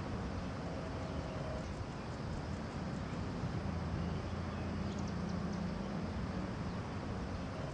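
Outdoor ambience: a steady low hum and rumble under an even noise bed, with a few faint short high chirps about five seconds in.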